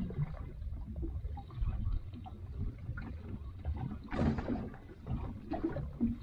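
Water lapping against the hull of a small fishing boat, with an uneven low wind rumble on the microphone and a short louder burst of noise about four seconds in.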